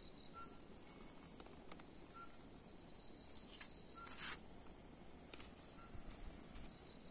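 Steady high-pitched chorus of night insects such as crickets, with a short faint call repeating about every two seconds. Brief rustle about four seconds in.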